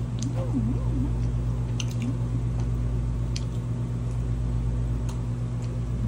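A person chewing a bite of grilled beef, with soft wet mouth sounds and a few faint clicks. A steady low hum underneath is the loudest sound.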